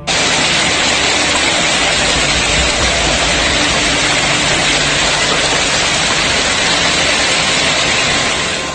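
Heavy hail pounding down in a dense, steady hiss that cuts in suddenly and fades near the end.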